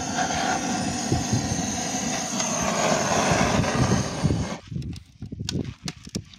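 Handheld gas-canister blowtorch roaring steadily as it lights split firewood, cutting off suddenly about four and a half seconds in. After that come scattered sharp crackles and snaps as the kindling starts to catch.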